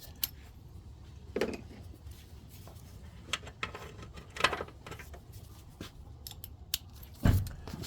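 Scattered clinks and knocks of metal tools being handled while a socket wrench's sockets are sorted through, the loudest knock near the end, over a steady low hum.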